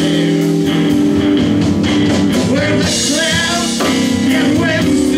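Live rock band playing: electric guitars and drum kit, with a melody line that bends in pitch over the top from about halfway through.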